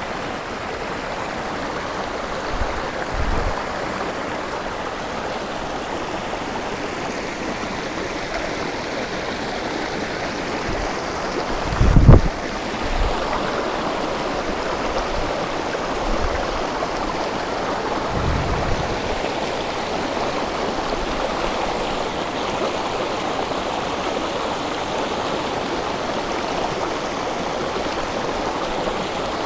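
Fast-flowing stream rapids rushing steadily, with a few dull low bumps; the loudest comes about twelve seconds in.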